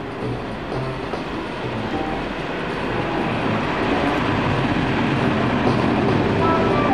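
DB Class 218 diesel-hydraulic locomotive hauling a train of passenger coaches, approaching and passing close by. Its engine running and the wheels on the rails grow steadily louder as it nears.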